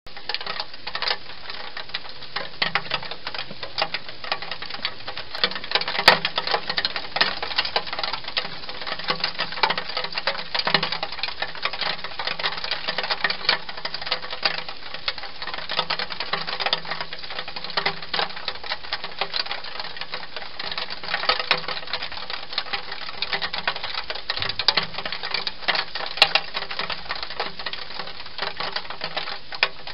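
Hedgehog eating noisily at a bowl inside a plastic feeding box: a dense, irregular run of crunching clicks and smacks that never lets up, with a few sharper clicks among them.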